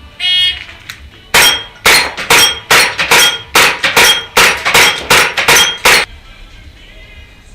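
A shot-timer start beep, then a rapid string of about a dozen sharp cracks over four to five seconds: an airsoft open-class race gun firing and its BBs striking steel falling plates with a short metallic ring.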